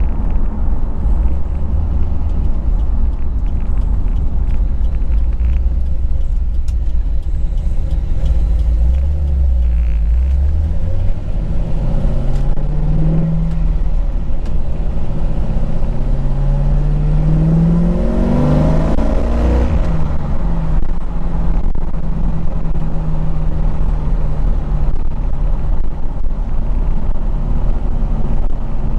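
C5 Corvette's V8 engine under way on the road: a steady low drone that rises in pitch twice as the car accelerates, dropping back briefly between the two pulls, then holding a steady cruising note.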